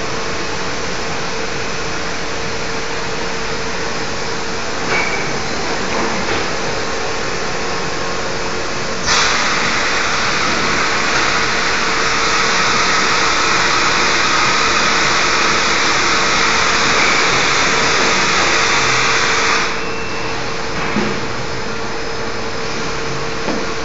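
Automatic gluing machine running with a steady mechanical hum and a faint steady tone. A loud hiss comes in sharply about nine seconds in and cuts off suddenly about ten seconds later. A few light clicks come before and after it.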